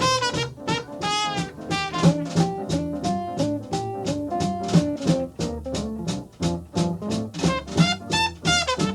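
Swing jazz band playing an instrumental passage: brass and saxophones over a steady beat.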